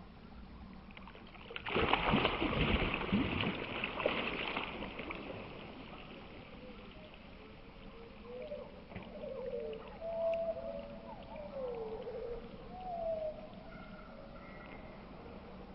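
A carp crashing at the surface in the lake margin: a sudden loud splash about two seconds in, then the water churns and sloshes for a few seconds. Later come a few faint, short sliding calls.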